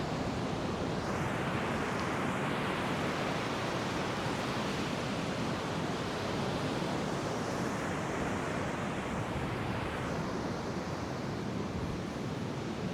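Ocean surf washing onto the beach: a steady rush of noise that swells about a second in and eases near the end.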